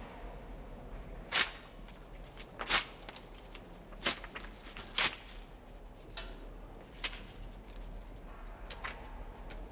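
Photographs being torn up: about six short, sharp paper rips spread over several seconds, the loudest in the first half, over a faint steady hum.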